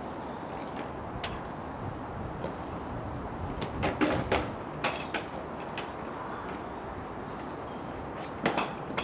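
Clanks and knocks of a wrought-iron garden gate swinging as a child's tricycle is pushed against it: a cluster about four seconds in and a couple more near the end, over steady background noise.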